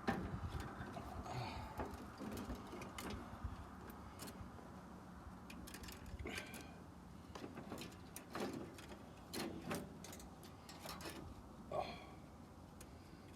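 Steel wire rope being unwound by hand from a coil, giving irregular light clinks, knocks and short scrapes.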